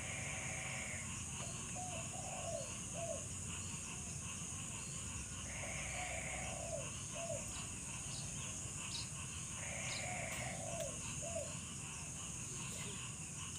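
Steady high-pitched drone of insects, with an animal call repeated three times about every four to five seconds: a short buzzy note followed by two quick falling notes.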